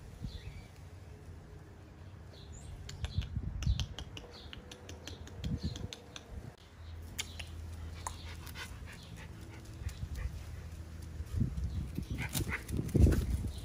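Small dogs whining, with a few short, louder barks near the end.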